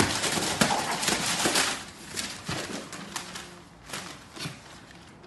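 Paper crinkling and tearing as a small dog grabs and shakes it on a hard floor: a quick run of crackles and clicks that thins out near the end.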